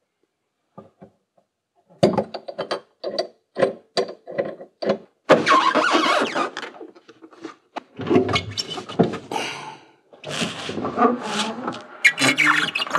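Trunk trim panel being worked loose and pulled out by hand. About two seconds in comes a quick run of clicks and knocks, then longer stretches of scraping and rustling as the panel comes away.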